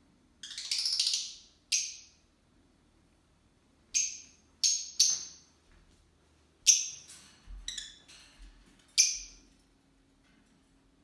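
Pet lovebird giving a series of short, shrill chirps at irregular intervals, some in quick pairs and triplets.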